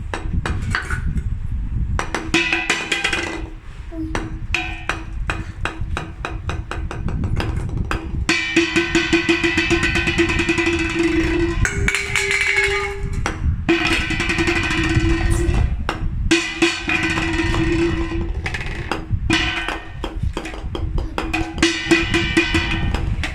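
Golf balls knocking and clicking in rapid, uneven runs of hard hits, over a steady ringing tone that starts and stops every second or few.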